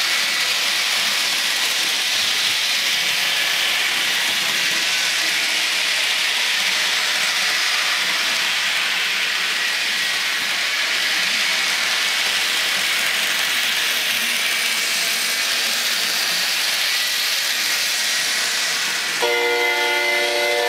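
Train sound effects from a model-railroad sound unit, played through small speakers: a steady rushing noise of a running train, then about nineteen seconds in a multi-tone diesel horn starts blowing and is held.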